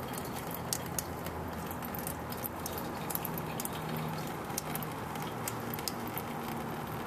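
Engine coolant draining in a thin stream from a disconnected lower radiator hose into a drain pan. It makes a steady trickle with scattered small ticks of splashing drops, over a faint low hum.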